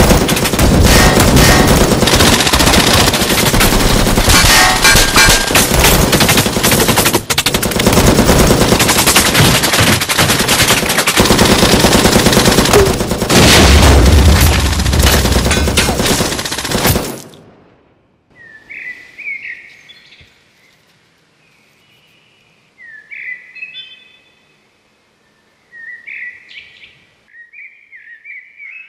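Sustained automatic gunfire sound effects, rapid and continuous, with a heavy explosion about halfway through. The firing cuts off suddenly, then birds call a few times in a quiet background.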